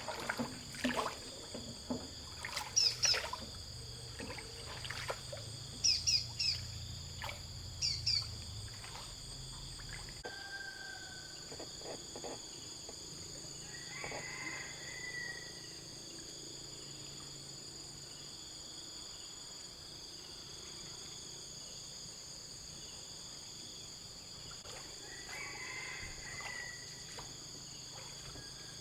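Outdoor ambience dominated by a steady, high-pitched insect drone of crickets or similar insects. Several short knocks and chirps come in the first third, and two brief bird calls sound, one midway and one near the end.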